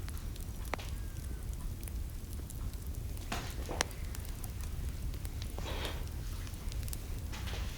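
Wood fire in a fireplace crackling, with sparse sharp pops over a steady low rumble.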